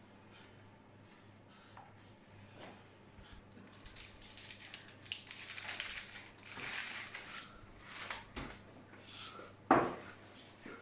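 Baking parchment rustling and crinkling as rolled-out dough is laid onto a paper-lined baking tray, after a few quiet seconds. A single sharp knock near the end is the loudest sound.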